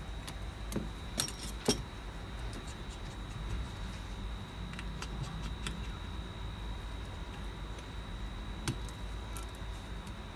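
Small metallic clicks and clinks of a precision screwdriver and tiny screws and brackets as an iPhone 7 is taken apart, with two sharp clicks about a second and a half in and another one later. A steady high-pitched whine and a low hum run underneath.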